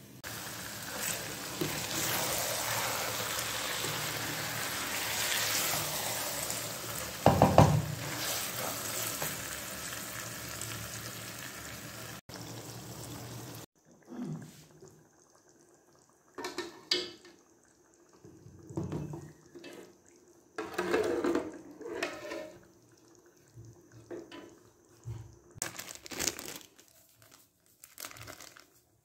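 Chopped onions sizzling in hot oil in a pan, with one loud knock about seven seconds in. The sizzle stops suddenly about halfway through; after that come only scattered short knocks and scrapes.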